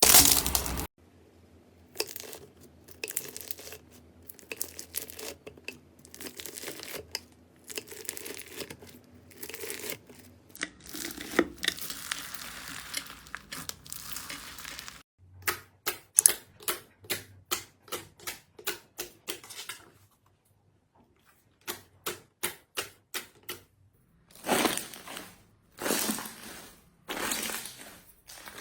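Slime being played with: crackling, crunching and tearing textures in a string of short takes, with a run of sharp pops about three a second in the middle.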